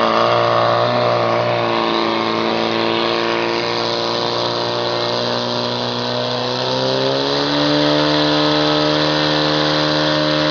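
Portable fire pump engine running at high revs, pumping water out through the hoses to the nozzles; its pitch rises and holds higher about seven seconds in.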